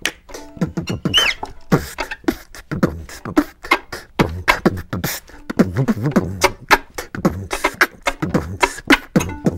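A man beatboxing with a hand cupped at his mouth, imitating drums with his mouth and voice: a fast rhythm of low thumps and sharp clicks, with a few gliding vocal sounds mixed in.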